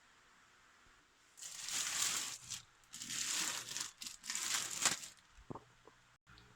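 Packaging being handled: three bursts of crinkling and rustling, then a couple of light knocks near the end.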